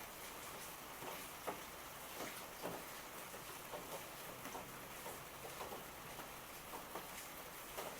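Steady rain falling, with irregular taps and drips of individual drops scattered through it several times a second.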